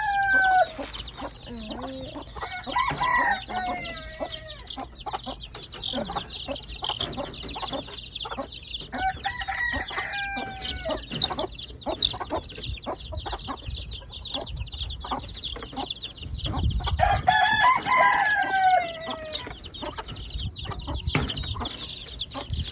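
A flock of chickens clucking and calling steadily, while a rooster crows several times, each crow a long call falling in pitch.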